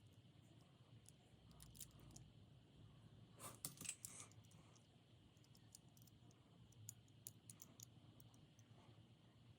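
Near silence with faint, scattered small clicks and light taps, a few louder ones bunched together about three and a half to four seconds in.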